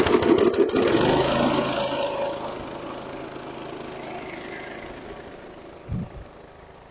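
Small gasoline engine of a power washer just started on choke, running fast and rough at first, then settling into a steadier, gradually quieter run. A brief low thump near the end.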